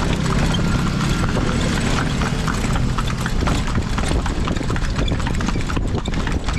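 A kalesa horse's hooves clip-clopping steadily on the street as it pulls the carriage. A low steady hum sits underneath and fades about halfway through.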